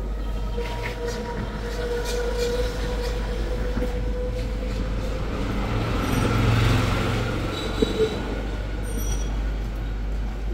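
Samsung top-loading washing machine running a spin cycle: a steady motor hum with a whine, its wash plate turning while the spin drum stays still, so it fails to spin. The hum swells briefly past the middle, and two short clicks come about eight seconds in.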